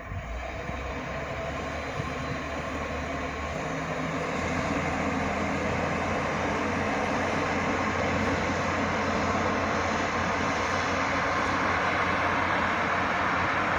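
JR Freight container train running past, a steady rumble of wheels on rails with a low hum underneath, slowly growing louder.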